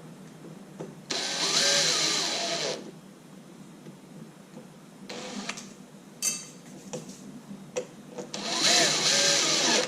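Cordless drill driving the mounting screws of a door lock in two runs of about a second and a half each, one near the start and one near the end, its motor pitch wavering under load, with a few light clicks between.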